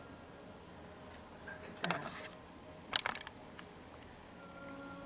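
Quiet kitchen handling sounds over a faint steady hum: a brief scrape and knock about two seconds in, then a single sharp click about a second later, as small tools work on an orange at a wooden cutting board.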